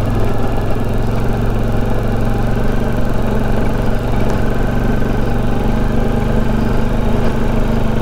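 Bajaj Dominar 400's single-cylinder engine running steadily as the motorcycle rides along, with no revving.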